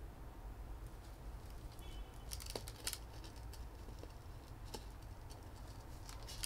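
Faint light rustling and scattered small clicks of potting soil poured from a hand scoop into a small pot around succulents, with a few ticks of tweezers.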